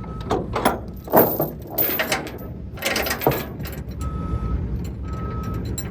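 Metal clanks and rattles. Then, from about four seconds in, a reversing alarm beeps about once a second over a running engine.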